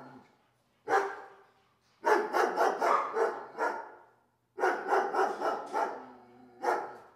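A dog barking: a single bark, then two runs of rapid barks, then two single barks near the end.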